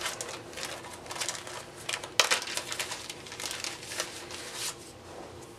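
Packaging being handled, rustling and crinkling in irregular crackles, with the sharpest crackle about two seconds in.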